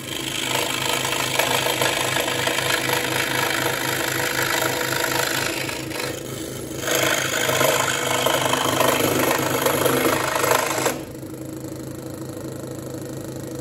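Ryobi 405 mm scroll saw running, its reciprocating blade cutting a circular base out of thin plywood, with a short lull about six seconds in. About eleven seconds in the cut is through and the saw runs on more quietly with no load.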